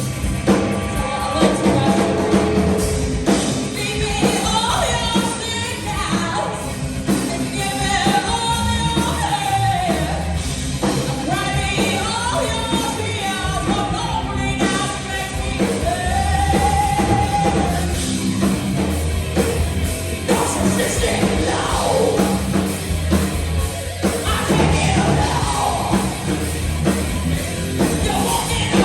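A heavy metal band playing live, with a singer's vocal line over the band, including several long held notes.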